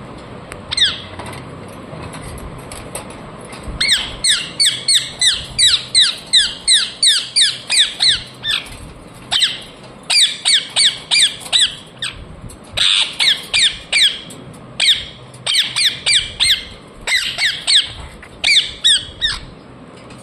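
Ringneck parrot giving rapid strings of sharp, high-pitched squawking chirps, about three a second, in several runs with short pauses between them.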